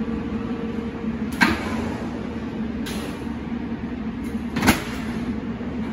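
Sharp metal clanks from a commercial convection oven's door and a sheet pan going in: one about a second and a half in, a fainter one near the middle, and a louder one near the end. A steady machine hum runs underneath.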